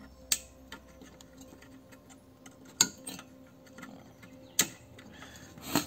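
Four sharp clicks, a second or two apart, from a motherboard being handled with a stock Intel CPU cooler freshly locked on by its plastic push-pins.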